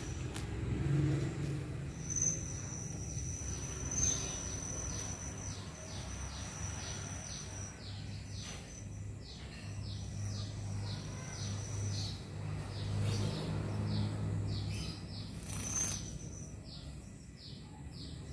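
A plain-throated sunbird nestling calling over and over: short, high, falling chirps, about two to three a second, kept up through most of the stretch.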